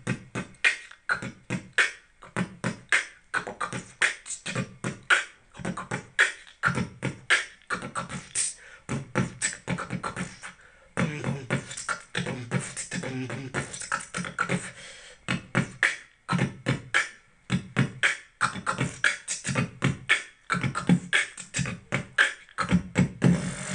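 Amateur beatboxing into a handheld wireless karaoke microphone, amplified through the Artis BT 800 party speaker. Rapid mouth-made percussion runs at several strokes a second, with a stretch of deeper pitched sounds about halfway through.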